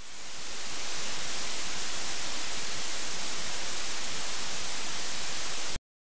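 Television static: a steady white-noise hiss that fades in over about a second and cuts off suddenly near the end.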